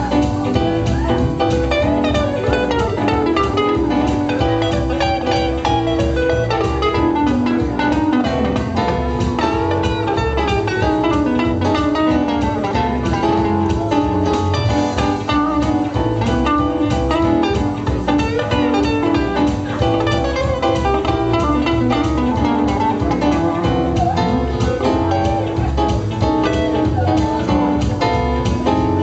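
Live band music: an electric guitar played with keyboard accompaniment, steady and loud throughout.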